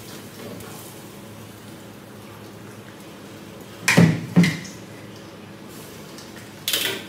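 Two heavy thuds a moment apart, about four seconds in, as a blanched leg of lamb is lifted from a wok and set into a ceramic bowl. Under them runs the steady low rush of the gas wok burner. Near the end there is a short, sharper clatter.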